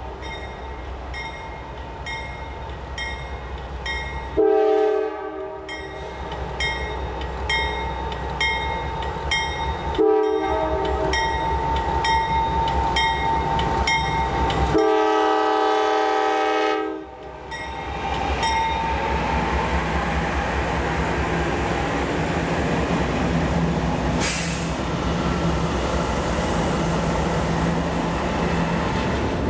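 A grade-crossing bell rings steadily while a GE Dash 9-44CW diesel locomotive sounds its air horn in long blasts for the crossing. After the last blast, about halfway through, the two locomotives and their freight cars pass close by with a steady engine rumble and wheel noise.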